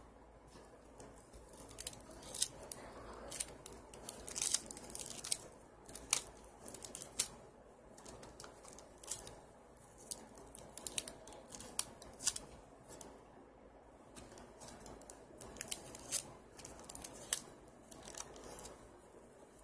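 Adhesive tape being pulled off and wrapped tightly around a bundle of rose stems, giving irregular sharp crackles and short rustles.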